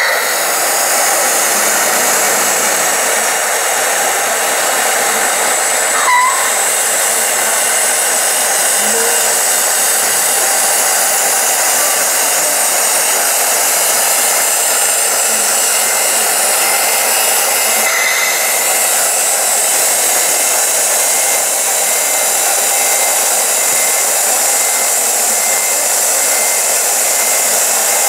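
Small electric hydraulic pump of a 1/14-scale RC tipper truck running steadily with an even, whirring hiss as it raises the tipper body.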